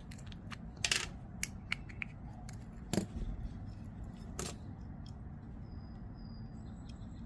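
Scattered light metallic clicks and taps of small folding-knife parts and a Torx driver being handled, over a low steady hum.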